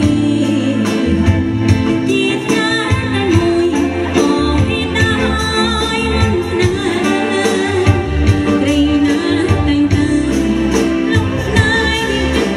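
A woman singing a Khmer pop song live, backed by a band with electronic keyboards over a steady beat.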